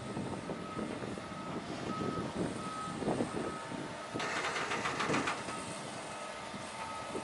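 Truck reversing alarm giving short, steady beeps a little more than once a second, over the low running of the heavy truck's diesel engine as it backs a loaded low-loader float. A burst of hiss comes about four seconds in and lasts about a second.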